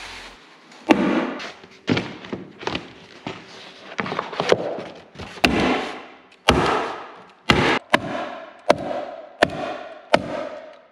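Hammer tacker driving staples through roofing paper into a plywood platform: about a dozen sharp strikes, roughly one a second, each with a short ringing tail.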